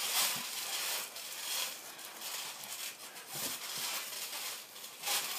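Scuffling on a backyard trampoline mat as bodies shift and land, with a couple of soft thuds, over an outdoor hiss.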